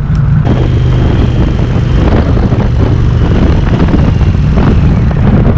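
Motorcycle riding at a steady pace, heard from the bike itself: a steady engine hum under loud wind and road noise.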